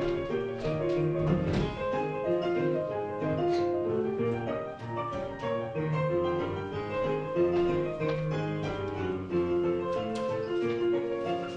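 Music with piano: a steady run of notes over sustained lower tones.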